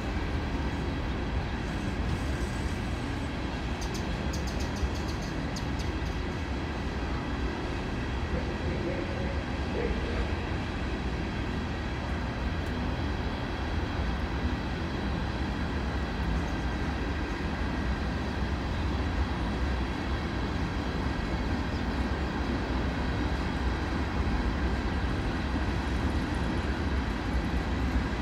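Norfolk Southern covered hopper cars of a freight train rolling past: a steady rumble of steel wheels on rail, with faint high steady tones and a brief run of quick ticks about four seconds in.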